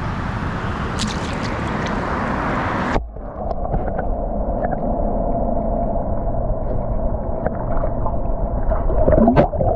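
Moving creek water with a full, even hiss, then about three seconds in the sound suddenly turns muffled and dull as the microphone goes underwater, leaving a low, gurgling underwater wash.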